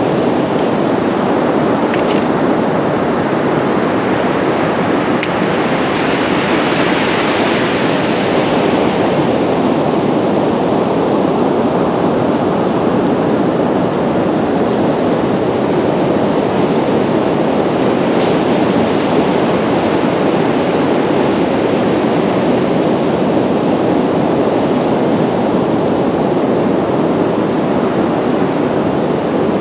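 Steady rush of sea surf breaking on a beach, mixed with wind on the microphone; the hiss of a wave's wash swells for a few seconds about six seconds in.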